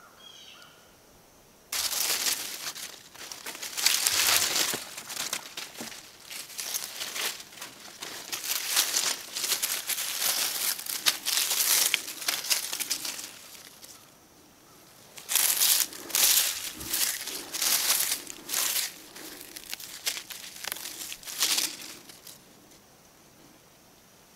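Flathead screwdriver and fingers scraping and prying through dry soil and leaf litter, digging out a ginseng root. Close scraping and rustling in two spells, a longer one and then a shorter one after a pause of about a second.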